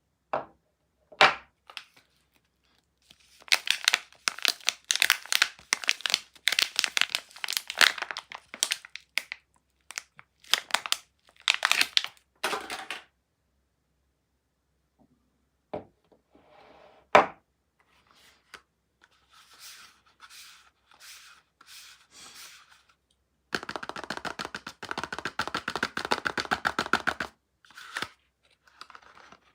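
Soap wrappers being torn open and crinkled by hand in stop-start stretches, with a few sharp clicks and snaps. A long continuous tear comes near the end.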